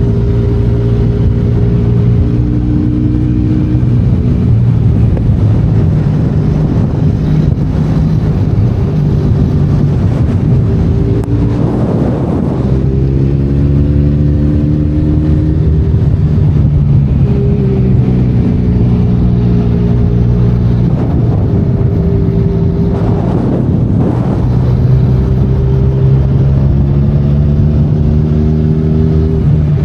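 Benelli Leoncino 500 Trail's parallel-twin engine running under a rider's throttle, its pitch rising and falling several times. Two brief rushes of noise come about halfway and about three-quarters through.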